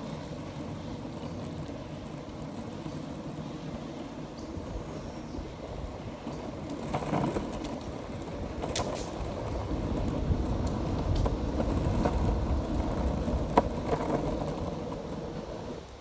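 Longboard wheels rolling over an asphalt path: a steady low rumble that grows louder from about halfway through, with two sharp ticks.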